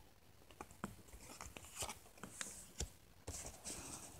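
Faint handling of trading cards and booster-pack wrappers: a scatter of small sharp clicks with a few brief crinkly rustles.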